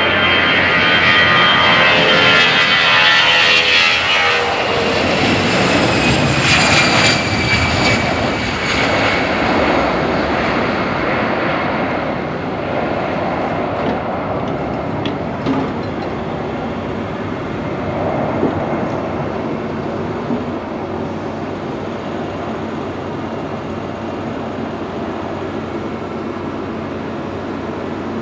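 Twin-engine narrow-body jet airliner climbing away after take-off. Loud engine noise whose high whine falls in pitch over the first several seconds as it passes, then a steady rumble slowly fading as it recedes.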